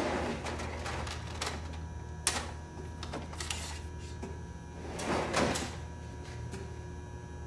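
Plastic storage bin being handled on a metal shelf: a slide at the start, a few sharp clicks, and a longer scraping rustle of its contents about five seconds in, over a steady low hum.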